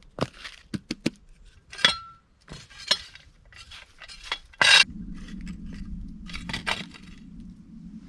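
Irregular scrapes and clinks of old ash and debris being cleared out of a campfire pit, one clink about two seconds in ringing briefly like metal, and a louder scrape just before five seconds. From about five seconds in, a steady low drone runs underneath.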